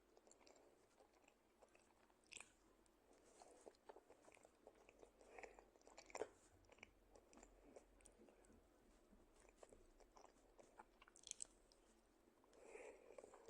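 Mochi being chewed close to the microphone: soft, quiet, sticky mouth smacks and wet clicks at an irregular pace, with a few sharper smacks at about two, six and eleven seconds in.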